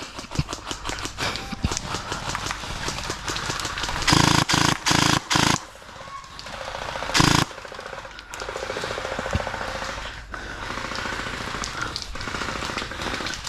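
Gel blasters firing on full auto: fast rattling strings of shots through most of the stretch. A few louder, short bursts of noise stand out about four to five seconds in and again around seven seconds.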